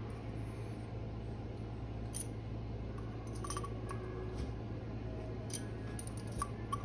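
Sparse light metallic clicks and taps of a hex driver and small engine parts being handled while a model nitro engine is put back together, over a steady low hum.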